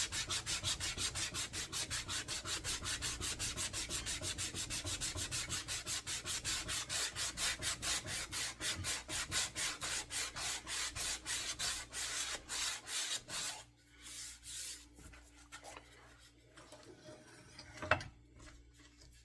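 Sandpaper on a hard, flat sanding block rubbed rapidly back and forth along the flat facets of a wooden axe handle, about four strokes a second. The strokes stop about thirteen seconds in, and a single sharp click comes near the end.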